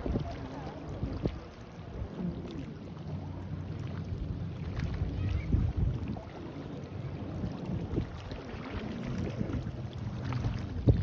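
Distant motorboat engine running over the sea, its low hum wavering, with wind buffeting the microphone.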